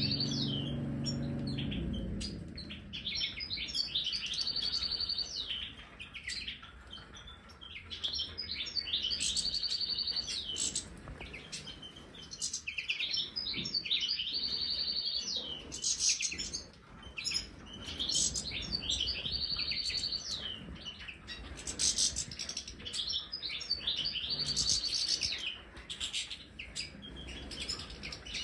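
European goldfinches twittering and singing, with quick chirps and trills and a buzzy drawn-out note lasting about a second that recurs every few seconds.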